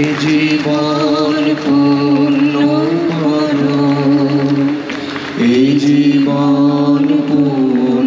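Slow singing in long held notes over a steady low drone. The line breaks off briefly about a second and a half in and again about five seconds in.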